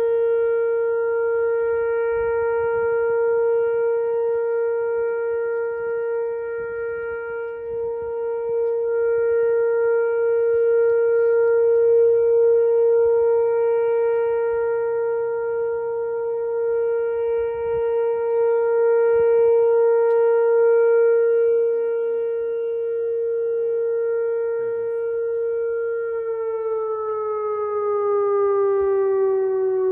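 Whelen WPS-2750 electronic warning siren sounding a steady tone during its monthly test. A fainter tone beneath it sweeps down and back up twice. Near the end the main tone starts to fall in pitch as the siren winds down.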